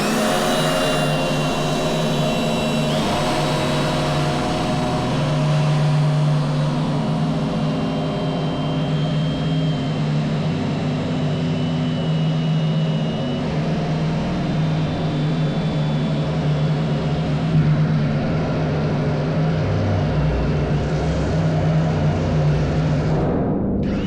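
Cordless drill running steadily, driving a step bit through the steel side wall of a shipping container. High thin tones come and go above the motor sound.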